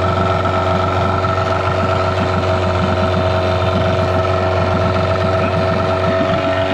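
Yamaha 6 hp two-stroke outboard motor running steadily, its leg in a drum of water.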